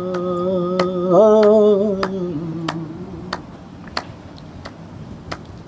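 A male Indian classical singer holds a long sung note at the end of a line, wavering in pitch a little past a second in, then letting it fade away by about three seconds in. Throughout, a sharp click keeps an even beat about every two-thirds of a second.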